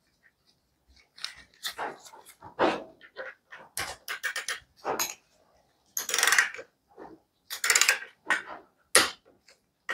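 Hand ratchet and torque wrench clicking in short, irregular bursts as the bottom damper bolt of a motorcycle fork is run in and tightened to 15 ft-lb.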